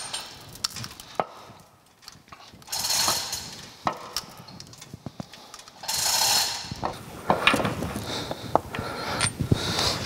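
Hand work on a vintage metal planer's drive-shaft bearing from beneath: scattered small metal clinks and taps, with two short bursts of rustling, about three and six seconds in.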